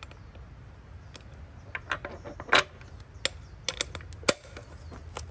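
A string of irregular light metal clicks and clinks as the 3D-printed tool-steel head of a carbon fiber breaker bar is fitted onto a socket on a motorcycle axle nut; the loudest clink comes about two and a half seconds in.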